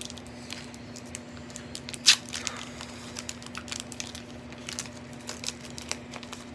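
Foil Pokémon booster pack wrapper being crinkled and torn open by hand: a run of small sharp crackles, with one loud sharp crackle about two seconds in.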